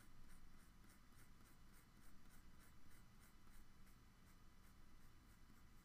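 Graphite drawing pencil scratching across paper in a quick, even run of short hatching strokes, about four a second, laying down a layer of straight cross-hatching lines. Faint.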